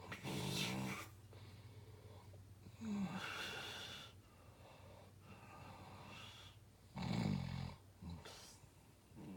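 Snoring: three loud snores a few seconds apart, the last the loudest, with quieter breathing between them.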